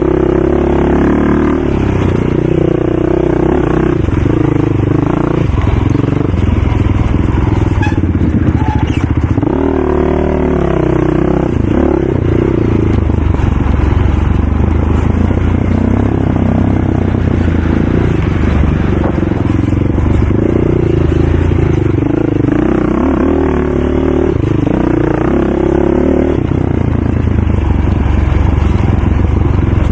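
ATV engine running and revving up and down, its pitch rising and falling over and over.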